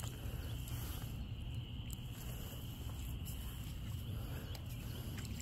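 Faint steady outdoor ambience: a low rumble under a thin, steady high-pitched drone, with a few soft clicks.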